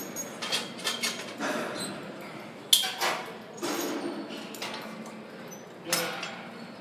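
Gym clatter: a series of sharp metallic clanks and knocks from weights and exercise machines, the loudest a little under three seconds in.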